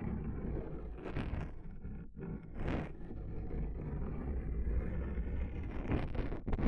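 Close-up ASMR trigger sounds: a dense, low rumbling rub with brief scraping swells about one, three and six seconds in.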